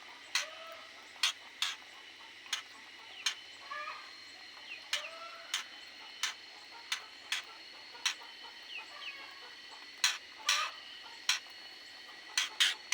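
Aviary birds calling: irregular sharp, short chirps, a few a second at times, mixed with occasional short lower clucking calls.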